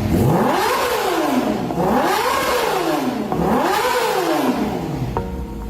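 Yamaha R6 inline-four revving through an Akrapovic full exhaust system: three free revs, each rising and falling in pitch over about a second and a half, before the engine sound fades near the end.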